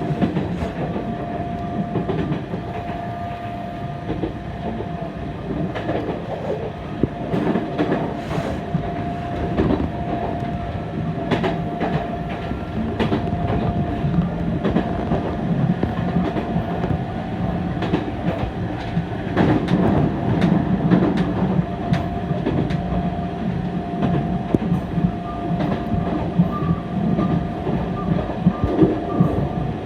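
Fukui Railway electric tram running on the line: a steady rumble of wheels on rail with a steady whine and scattered clicks from the rail joints.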